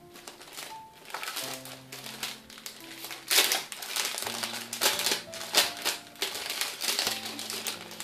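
Clear plastic bag crinkling in irregular bursts as it is handled and opened, loudest about three seconds in, over background music with held low notes.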